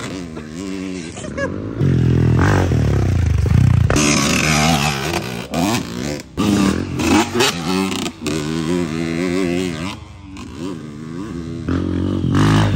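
Dirt bike engine revved hard again and again, its pitch climbing and falling, as the spinning rear tyre roosts mud with a hiss and clatter of flying dirt.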